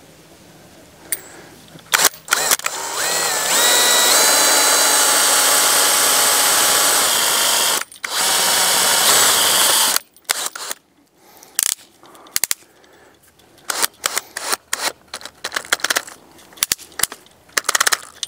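Cordless drill running against a galvanized steel EMT conduit pole in two long runs, its whine rising as the motor spins up. The second run stops about ten seconds in, and a string of short, irregular clicks and taps follows.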